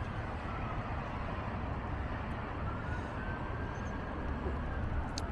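Steady outdoor rumble of road traffic, with a faint high whine in the middle.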